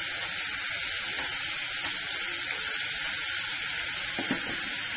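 Chopped onions sizzling steadily as they fry in hot oil in a pan.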